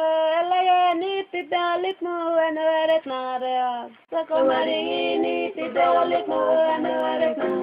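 A song: a single voice holds long sung notes, stepping between pitches, then drops out briefly about four seconds in before fuller music with several voices or instruments carries on.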